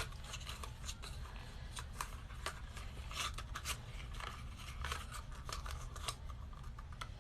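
Irregular crinkles and clicks of a cosmetic product's packaging being handled and opened, over a low steady hum.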